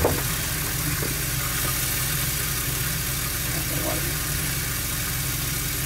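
A steady low mechanical hum with an even pulse, as from a motor or fan running, with one sharp click right at the start.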